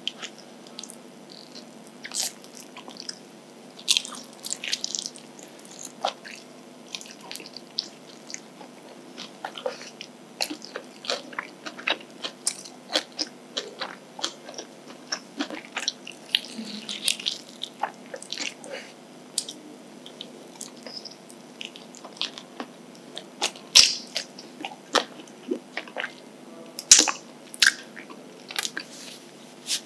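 Close-up eating of sauce-glazed fried chicken: crunching bites into the crisp coating and chewing, dense with sharp crackles, with a few louder clicks near the end.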